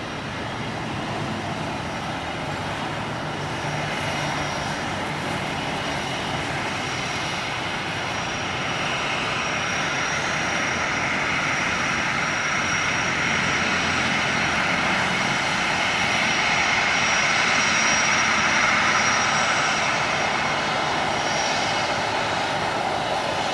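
Jet airliner engines running: a broad steady rush with a thin high whine. The sound grows slowly louder through the middle, and the whine fades out near the end.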